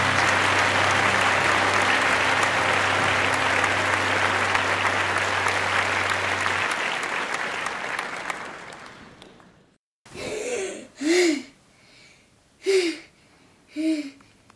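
Sitcom-style studio audience applause that fades out over about ten seconds. After a moment of silence, a young girl gasps in several short, sharp breaths as she jolts awake from a nightmare.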